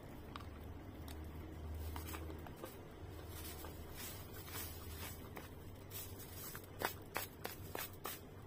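Quiet eating sounds: a plastic spoon scooping and scraping rice off a plastic-wrapped plate while she chews, with scattered sharp clicks and a quick run of louder clicks near the end.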